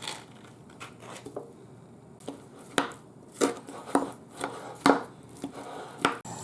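A kitchen knife chopping on a cutting board while guacamole ingredients are prepared: quiet at first, then a run of sharp, irregularly spaced chops from about three seconds in, roughly two a second.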